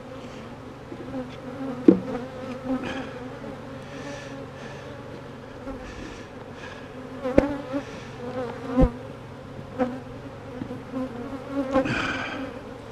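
Honey bees buzzing in a steady hum around an open hive, with a few sharp knocks scattered through.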